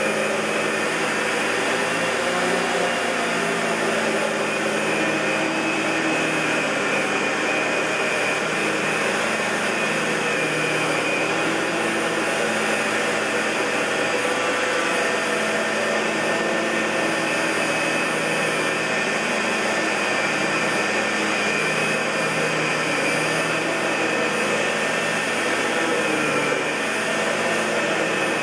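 1999 Fantom Lightning LC56-00 bagless cyclonic canister vacuum cleaner running steadily: an even whine with a hiss, holding the same pitch throughout.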